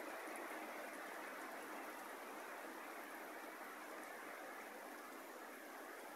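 Rain falling: a steady, even hiss.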